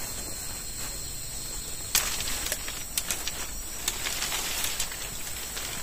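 Outdoor rural ambience: a steady high insect drone, with scattered crackles and rustles from about two seconds in.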